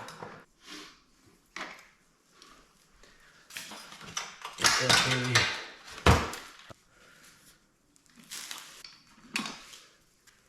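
Metal clinks, rustles and knocks from undoing the tie-downs that hold a pit bike to its steel shipping crate, with one sharp knock about six seconds in.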